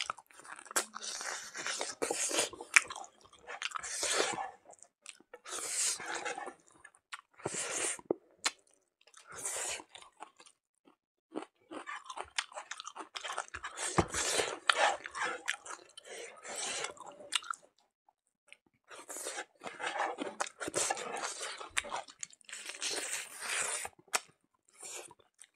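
A person chewing smoked pork leg close to the microphone, with many sharp clicks and crunches, in spells broken by two short pauses partway through.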